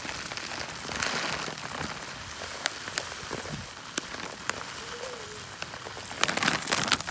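Birdseed pouring into a bird feeder: a steady rain-like patter of seeds with scattered sharp ticks, growing louder near the end.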